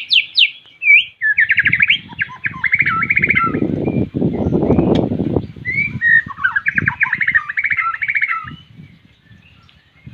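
White-rumped shama (murai batu) singing loud, clear whistled phrases and rapid trills, the challenging song used to call out a rival. A loud low rumbling noise runs underneath from about a second in, and both die away near the end.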